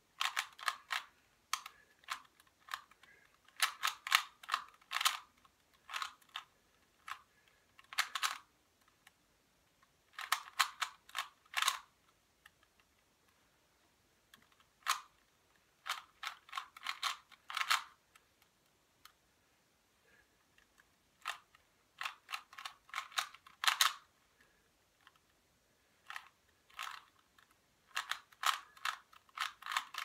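Plastic 3x3 Rubik's cube being turned quickly by hand: runs of rapid clicking and clacking as the layers snap round, broken by short pauses between runs of turns.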